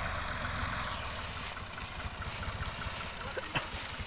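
Tractor diesel engine running steadily at low revs, hitched to a trolley heavily loaded with sugarcane. A single sharp click about three and a half seconds in.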